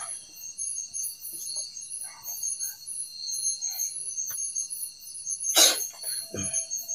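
Night insects such as crickets chirping in a steady, high-pitched pulsing chorus. A single short, loud sound about five and a half seconds in, likely a cough or a stir from one of the sleepers.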